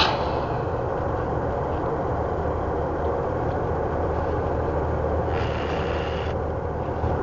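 Rolls-Royce Trent 7000 turbofans of an Airbus A330-900neo at taxi power: a steady low rumble with a broad hiss. A short burst of noise comes right at the start, and a higher hiss swells for about a second a little past five seconds in.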